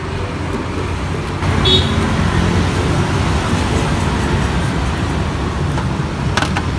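Steady road-traffic rumble from the street beside the stall, with a brief high-pitched tone about two seconds in. Near the end come a couple of light metallic clicks as a fork knocks against the aluminium steaming pot.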